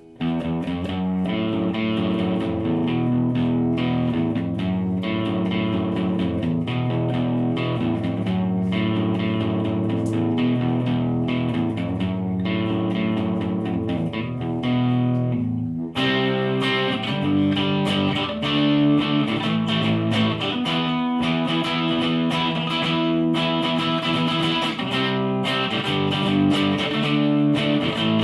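Electric guitar played through a Line 6 POD Pro amp modeler, clean to lightly crunchy tone, continuous picked chords and lines. About halfway through there is a short break and the tone switches to a brighter sound.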